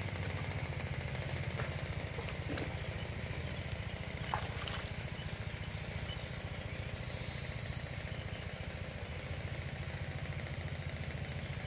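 A small engine running steadily with a fast, even low throb, with a few short high bird chirps about four to six seconds in.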